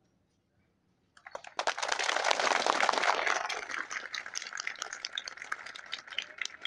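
A group of people clapping. It starts about a second in, is loudest for the next two seconds, then thins out to scattered claps.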